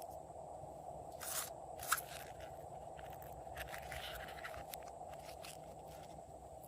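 Slime being worked by hand, giving scattered crackling clicks with two louder crunchy snaps about a second and a half and two seconds in.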